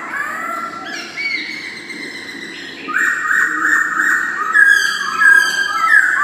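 Black-throated laughingthrush (poksay Hongkong) singing a series of clear whistled notes. They soften briefly, then break into a faster, louder run of repeated notes from about three seconds in.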